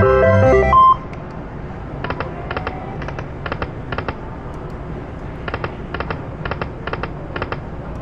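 Video slot machine playing a short electronic jingle that stops about a second in, then a run of short electronic clicks in pairs and threes over steady casino background noise as it spins.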